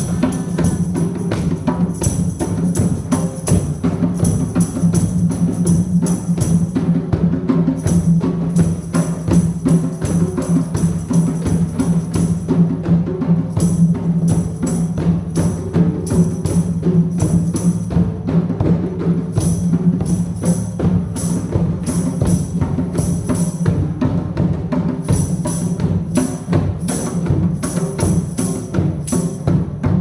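Drum circle: several drums played together in a steady, gentle rhythm, with bright jingling percussion over the top.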